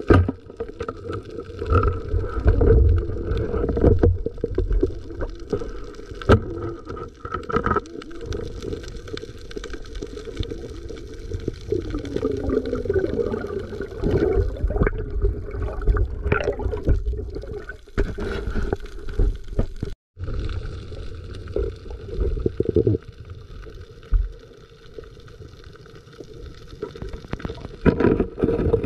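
Muffled underwater noise picked up by a camera in a waterproof housing: water rushing and gurgling, with scattered knocks and clicks.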